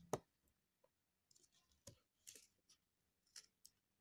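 Scissors snipping through thin cardboard: a series of short, quiet snips and clicks. The first, right at the start, is the loudest.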